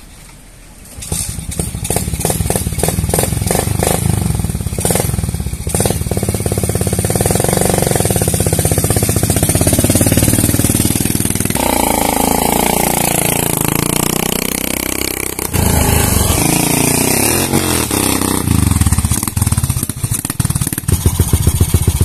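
Motorcycle fitted with a loud aftermarket 'brong' exhaust, revving hard in uneven bursts. Near the middle it rides past, its engine note dipping and climbing, then revs again near the end.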